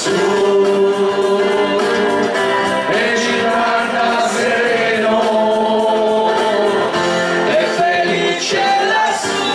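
A small mixed group of men and women singing an Italian song together into microphones, over keyboard accompaniment.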